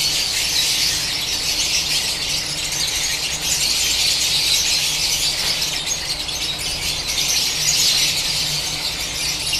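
Dense, continuous chatter and screeching of a room full of caged lovebirds, steady throughout, with a faint low hum underneath.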